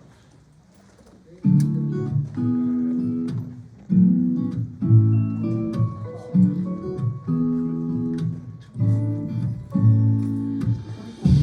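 Background music of strummed acoustic guitar chords, starting about a second and a half in, with a new chord struck roughly every second.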